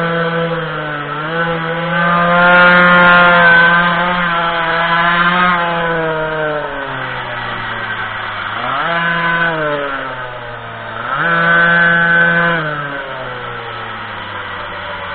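Minimoto's small two-stroke engine under riding throttle: it revs up and holds high for a few seconds, drops off, then gives two shorter bursts of revs before settling low.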